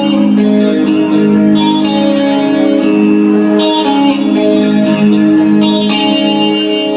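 Guitar music playing chords, the instrumental intro of a song before the vocals come in.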